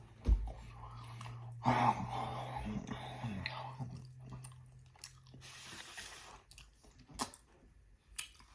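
Close-miked eating sounds from a man chewing and biting food, with wet mouth noises and a few sharp clicks. A low steady hum sits underneath and stops a little past halfway.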